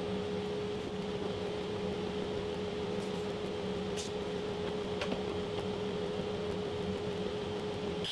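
Workshop dust collector running with a steady hum and a constant tone. A couple of light knocks from boards being handled come about halfway through.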